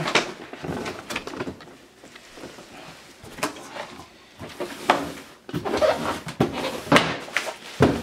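Unboxing handling noise: plastic wrapping rustling and cardboard and plastic vacuum parts knocking and clacking as they are moved, with several sharp clacks in the second half.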